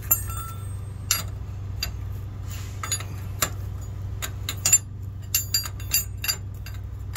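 Steel open-end wrench clinking and clicking against the caging-bolt nut and housing of a truck's spring brake chamber as the bolt is tightened to compress the brake spring: a dozen or so irregular sharp metal clicks over a steady low hum.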